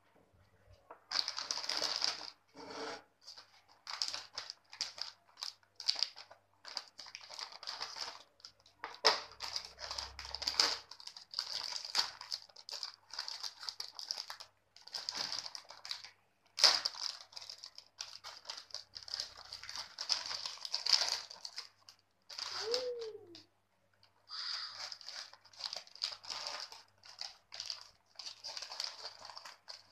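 Bingo Yumitos potato chip packet crinkling and rustling as it is handled, opened and tipped over a plate, in irregular bursts with short pauses. A single sharp click about 17 seconds in.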